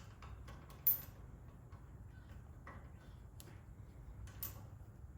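Faint scattered metallic clicks and taps of small parts and tools being handled while a bottle rinser's clamp is reassembled, with a sharper click about a second in and another near the end, over a low steady hum.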